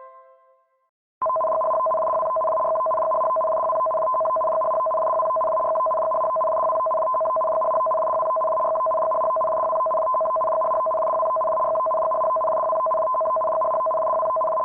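Steady electronic two-tone signal: a lower and a higher tone sounded together at an even level, starting abruptly about a second in after a brief silence.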